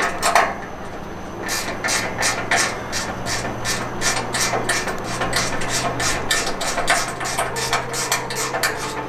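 Hammer striking steel in a rapid, even series of blows, about three or four a second, starting about a second and a half in: bending a steel mounting plate to the contour of a truck frame rail.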